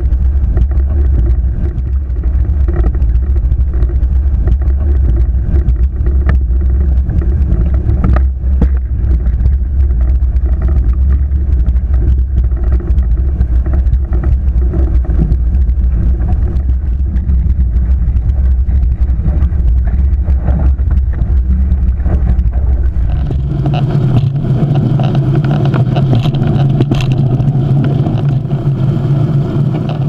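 Wind buffeting the microphone and water rushing and spraying along the hulls of a Hobie 20 racing catamaran sailing fast. About three-quarters of the way through, the deep rumble gives way to a steadier, slightly higher hum with more hiss.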